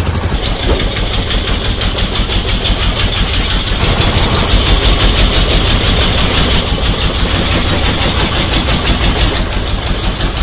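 A fishing boat's deck-mounted inboard engine running steadily under way, loud, with a rapid, even pulse.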